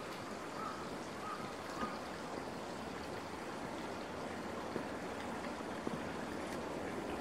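Steady, even rush of flowing water, like a small stream, with a few faint short high notes in the first two seconds.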